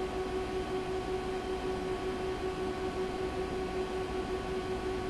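Steady hum of a running machine or appliance: one unchanging drone with a few higher overtones over an even hiss.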